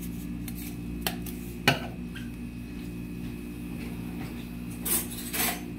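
Kitchen handling sounds: a light click about a second in, then a sharp knock as the salt shaker is set down on the stone counter. Two short rustling scrapes follow near the end, over a steady low hum.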